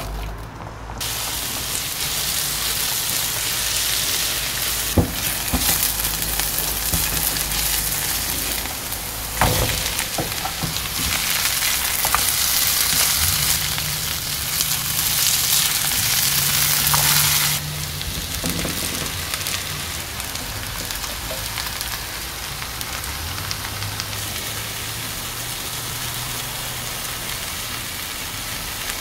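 Chopped onion and vegetables sizzling as they fry in oil in a nonstick frying pan, with a few knocks of a spatula stirring against the pan. The sizzle is loudest in the first half and drops to a lower level about two-thirds of the way through.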